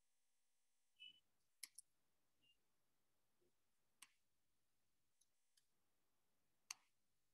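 Near silence broken by about four faint, sharp clicks of a computer mouse and keyboard, spaced a second or more apart, with a brief faint high tone about a second in.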